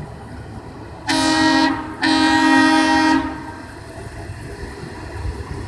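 Horn of a railroad maintenance-of-way work car sounding a courtesy honk: two blasts, a short one about a second in and then a longer one.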